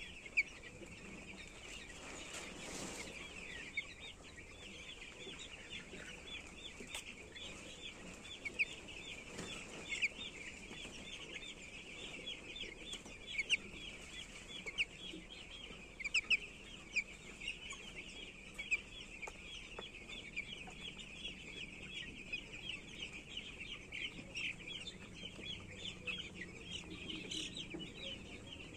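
A flock of young poultry chicks peeping continuously: a dense chorus of many short, high peeps overlapping one another, with a few louder individual peeps standing out.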